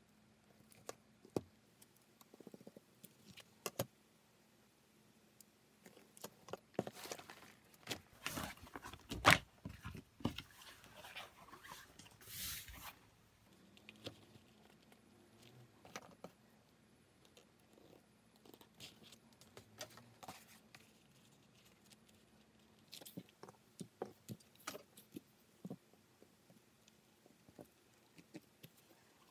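Hands working a crocodile hide on a cutting mat: a steel ruler laid down and shifted, and the stiff leather sliding and rustling, with scattered light taps and clicks. A busier stretch of rustling comes around the middle, with a sharp knock about nine seconds in.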